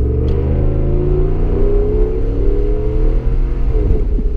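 2015 Ram 1500's 5.7L Hemi V8 accelerating under moderate throttle, heard inside the cab with the windows half down. The exhaust runs through a muffler delete and Y-pipe, so its drone rises steadily in pitch. Near the end the pitch drops away.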